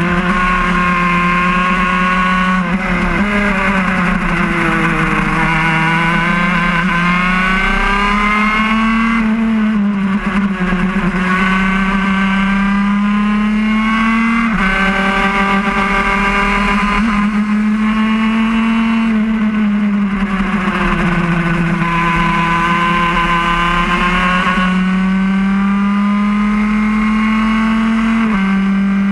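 Onboard sound of a laydown road-racing kart's engine running hard. Its pitch climbs for several seconds at a time, then sags, over and over, with a few sudden drops in pitch.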